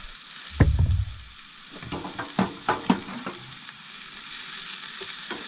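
Mushrooms, onion, pepper and okra frying in olive oil in a pan on a camp stove, with a low thump about half a second in and utensils clicking and knocking against the pan. The sizzle grows steadily louder in the second half as a steak goes into the hot pan.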